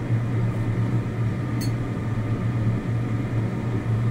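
Steady low machine hum, like a fan or motor running, with one faint tick about a second and a half in.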